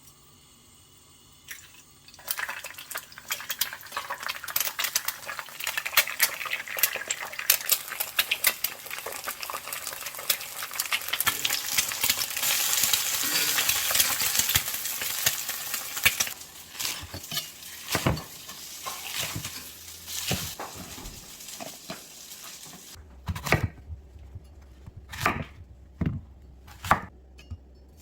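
Cooking in a pan: a utensil stirring and scraping with rapid clinks over a sizzle that builds to its loudest near the middle. In the last several seconds it gives way to separate taps and clinks of a utensil against the cookware.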